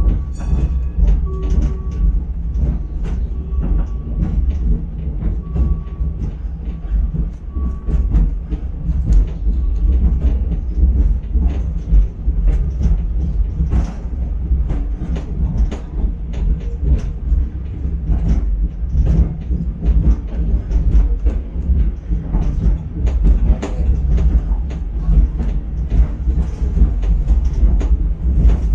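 Chiemsee-Bahn steam tram running on its metre-gauge track: a steady low rumble with irregular clacks and rattles from the wheels and carriage.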